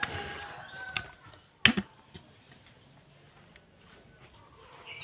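A few sharp clicks or knocks in the first two seconds, the loudest a close pair about a second and a half in, then only a low, quiet background.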